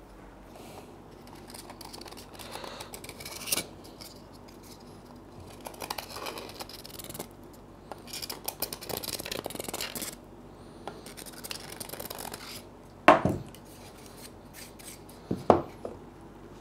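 3D-printed plastic engine parts being worked together by hand, with rubbing, scraping and clicking as a screwdriver works at a bearing being fitted into the part. A few sharp knocks, the loudest two near the end.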